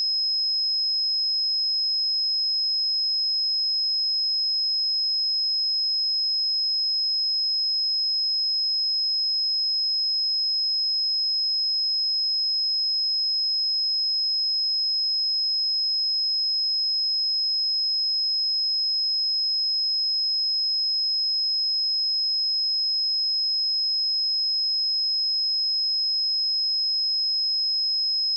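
A steady, pure 5125 Hz sine-wave test tone, one unchanging high-pitched note at a constant level.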